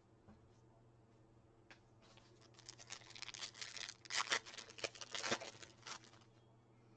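A baseball card pack's wrapper being torn open and rustled: a run of quick tearing and crinkling sounds from about two seconds in, loudest in the middle, stopping about six seconds in.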